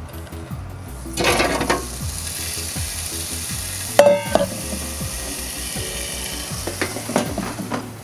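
Raw potato strips sliding and rustling out of a stainless-steel bowl into a plastic air-fryer basket about a second in, then a sharp clank with a short metallic ring from the steel bowl about four seconds in, and a few light knocks later, over a steady hiss.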